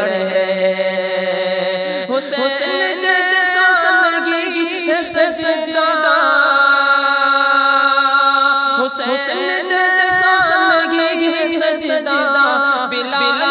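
A man's solo voice singing an Urdu naat, a devotional poem in praise of the Prophet, in long, ornamented held notes. A new phrase begins about two seconds in and again about nine seconds in.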